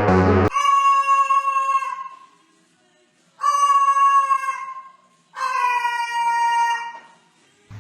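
Three long drawn-out calls from a pet animal, each about a second and a half, each sinking slightly in pitch, with short pauses between them.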